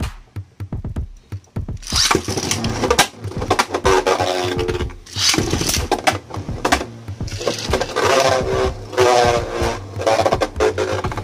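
Electronic background music with a beat, which grows much fuller about two seconds in. Beyblade spinning tops whir and knock together in a plastic stadium bowl beneath it.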